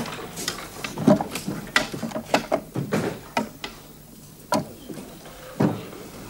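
A run of light, irregular clicks and knocks for about three and a half seconds, then two single louder knocks further apart.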